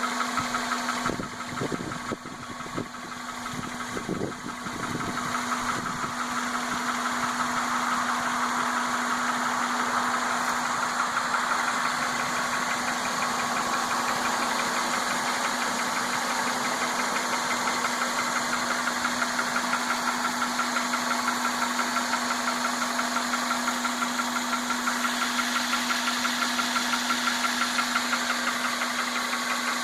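1998 Honda Accord 2.3-litre VTEC four-cylinder engine running at a steady idle with a fast, even ticking/clicking. The owner suspects a bad valve or a worn belt or timing belt. A few dull knocks come in the first few seconds.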